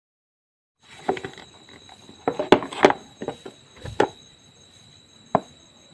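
Irregular sharp clicks, knocks and rustling of hands working loose plastic parts, as the air filter box of a motorcycle is opened to get at the filter. A faint steady high whistle runs underneath.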